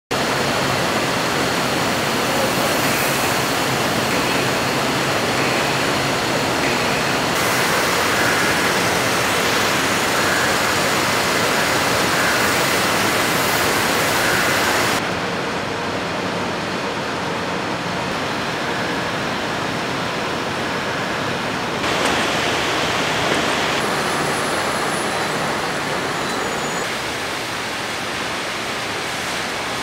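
Steady, loud machine din of a beverage canning line, with aluminium cans running and jostling along conveyors. The noise shifts abruptly several times.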